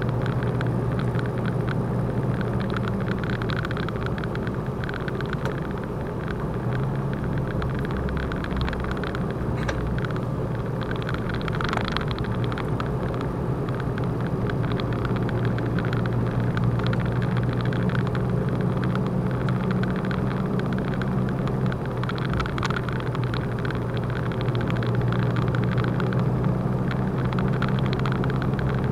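A truck's diesel engine running steadily with tyre and road noise, heard from inside the cab while driving.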